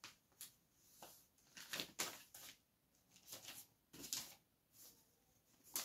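Faint, short scratchy strokes of handwriting, about a dozen of them at an uneven pace, as a question is written out.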